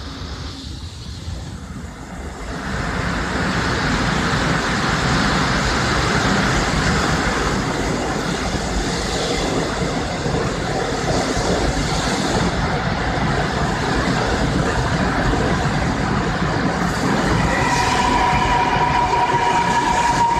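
Seoul Metro Line 4 electric subway train arriving at a station: its running noise swells about two seconds in as the cars come alongside, then holds steady. Near the end a whine with several tones comes in and drops slightly in pitch as the train slows.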